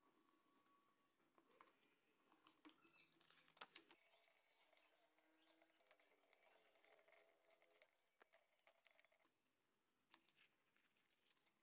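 Near silence, with faint scattered clicks and rustles of paper being folded and creased by hand.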